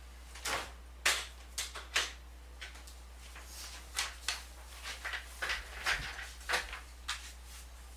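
Scattered light knocks and clicks of objects being handled and set down, about fifteen short sharp sounds at uneven intervals, over a low steady hum.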